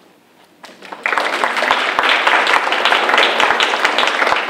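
Audience applauding: dense, steady clapping from many hands that breaks out about a second in.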